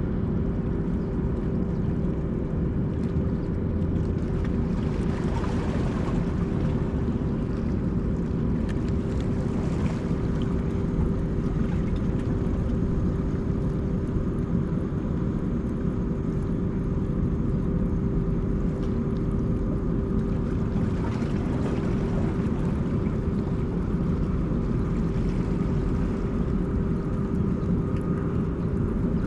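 Steady low engine drone with a constant hum, holding the same level throughout.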